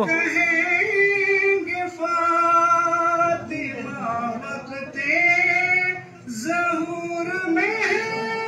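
A man singing an unaccompanied Urdu devotional song (manqabat) in praise of Imam Hussain into a microphone: long held notes that waver in pitch, broken by short pauses.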